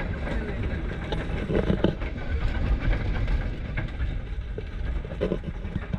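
Moving vehicle heard from on board: a steady low engine and road rumble, with wind buffeting the microphone.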